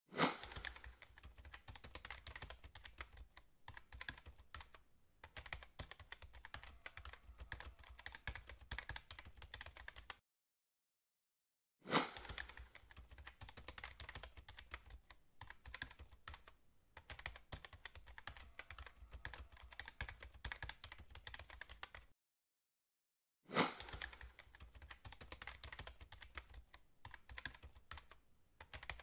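Keyboard-typing sound effect: dense rapid key clicks in three long runs, each opening with one sharp loud hit and broken off by a second or so of silence, accompanying caption text typing itself out on screen.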